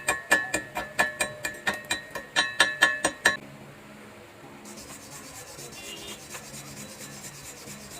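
Quick, even metal-on-metal knocking on steel, about four to five ringing strikes a second, stopping a little after three seconds. A faint steady hiss with fine crackle follows.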